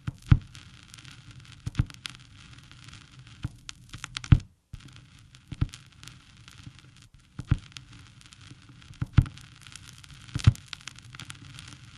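Irregular crackling: a sharp pop every one to two seconds among finer crackle, over a steady hiss and low hum. The noise cuts out for a moment about four and a half seconds in.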